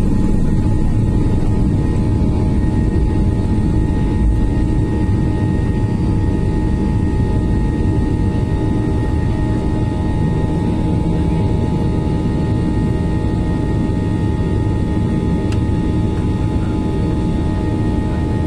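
Jet airliner engines at takeoff thrust heard from inside the passenger cabin during liftoff and initial climb: a loud, steady rumble with steady high whining tones over it.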